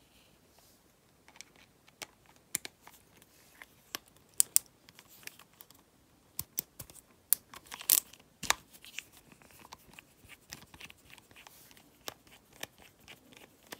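Irregular small clicks, taps and scrapes of a screwdriver and metal reel parts being handled while the screws of a baitcasting reel are worked out, with a few sharper clicks about four and a half and eight seconds in.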